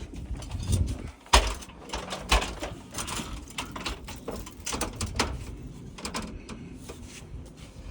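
Irregular clanks and knocks of a ladder being set in place and climbed, with the loudest knocks about a second and a half and two and a half seconds in.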